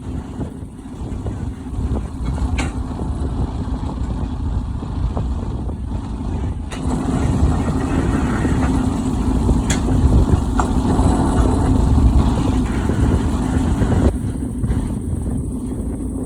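Diesel engine of a KAMAZ truck-mounted URB-3AM drill rig running steadily with a low rumble. It grows louder about seven seconds in and eases back near the end.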